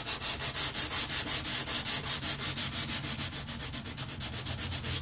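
Sandpaper rubbed by hand back and forth along a steel knife blade in quick, even strokes, several a second, with a scratchy hiss. The paper is 150 grit, which is too fine to cut the blade well.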